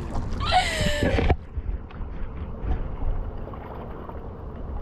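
A woman's short burst of laughter about half a second in, then wind rumbling on the microphone over light paddle splashes from a tandem kayak.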